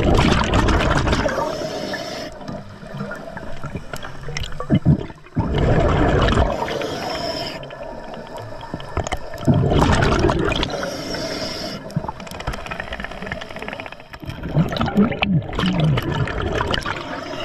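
Scuba diver breathing through a regulator underwater: four gurgling rushes of exhaled bubbles, about one every four to five seconds, with quieter hissing between them.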